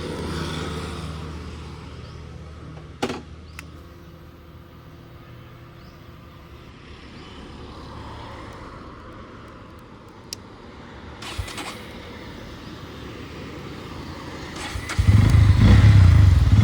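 A motorcycle that would not start after a service, with a few sharp clicks over a quiet low hum. About fifteen seconds in, a motorcycle engine starts and runs loudly.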